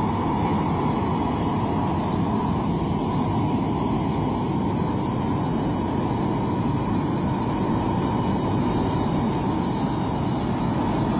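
Heavy road-resurfacing equipment running steadily, a continuous engine noise with its energy mostly deep and no breaks or changes.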